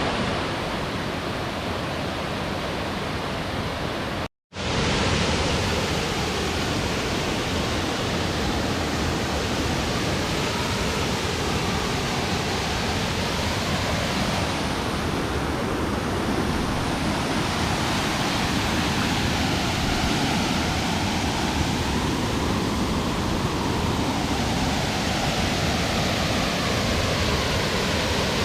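Steady roar of a jungle waterfall, its water pouring without a break. It cuts out for a moment about four seconds in, then resumes.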